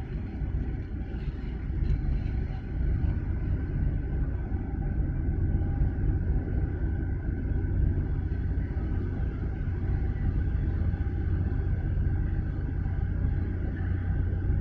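Deep, steady rumble of a large container ship's engines as the ship approaches, getting a little louder about two seconds in.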